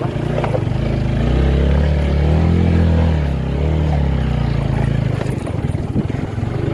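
Motorcycle engine running while being ridden over a dirt track, its pitch rising and then falling again about halfway through.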